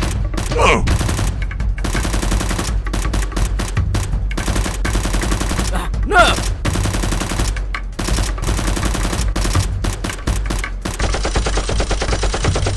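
Rapid, continuous automatic gunfire, shot after shot with barely a break.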